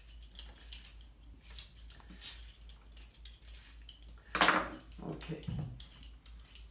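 Potatoes being peeled by hand: faint scraping and small clicks of the peeler and knife. About four and a half seconds in comes one louder clank of kitchenware, as of a metal mixing bowl being handled.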